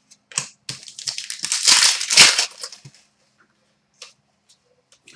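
Trading-card packaging crinkling and rustling as it is handled and opened, in irregular bursts that are loudest about two seconds in, then a few faint ticks.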